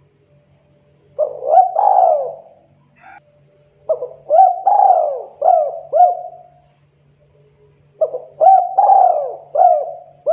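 Spotted dove cooing: three phrases of short, arching coos, starting about 1, 4 and 8 seconds in.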